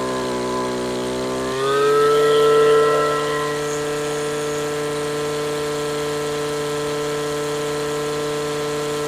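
Stihl FS55 RC string trimmer's two-stroke engine running at high speed while its carburettor mixture is tuned around the rich, four-stroking setting. About a second and a half in, the pitch steps up and the sound grows louder, then it holds steady.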